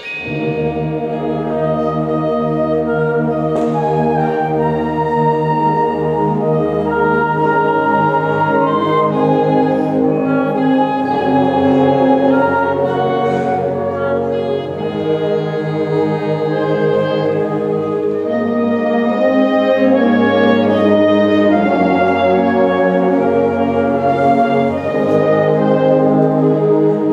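Student concert band of woodwinds and brass playing full, sustained chords, the whole band coming back in together after a brief pause at the start.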